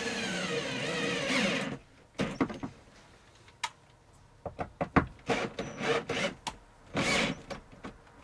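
Cordless drill driving construction screws through an upper cabinet into wooden furring strips. The motor runs for about two seconds with its pitch rising and falling, then comes short spurts of driving mixed with clicks and knocks.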